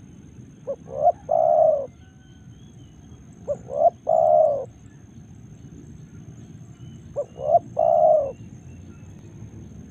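Spotted dove (tekukur) cooing: three calls about three and a half seconds apart, each two short notes followed by a longer coo.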